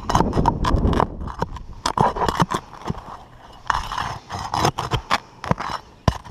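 Flat steel nail bar scraping under roof shingles and prying out roofing nails: an irregular run of sharp metal clicks and scrapes.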